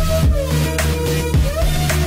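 Electronic dance-style background music with a steady beat.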